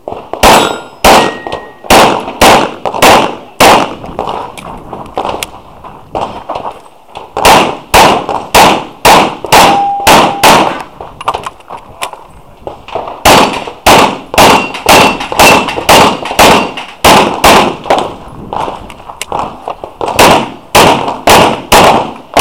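Rapid 9mm pistol fire from a Glock 34: strings of shots about a third of a second apart, broken by short pauses as the shooter moves between positions. A few shots are followed by a brief ring of struck steel targets.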